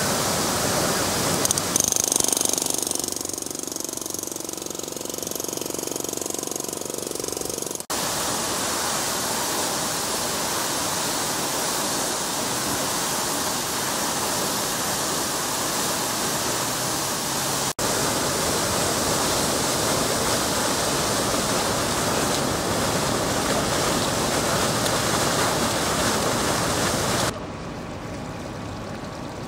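Water gushing from a sheared-off fire hydrant: a dense, steady rush of high-pressure spray and falling water. Near the end it drops to a quieter running of water over flooded pavement.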